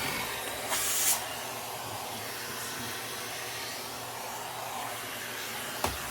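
Vacuum cleaner running steadily, a rushing hiss over a faint hum, vacuuming dust out of an AV receiver. A brief louder rush comes about a second in, and there is a sharp click near the end.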